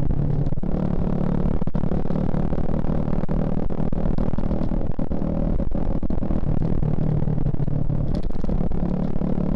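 Suzuki Shogun Axelo R single-cylinder four-stroke engine running under way at a fairly even speed, a steady drone.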